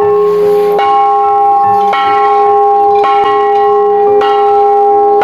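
Music of sustained bell-like tones, held steady without dying away, the notes changing about once a second.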